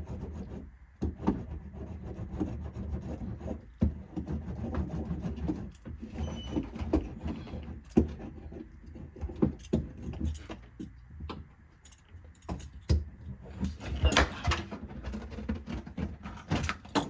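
Irregular knocks, taps and crinkling as aluminium-faced rubber butyl sound-deadening mat is handled and pressed onto the vehicle's floor panel. There is a brighter flurry of crinkling and rattling about fourteen seconds in.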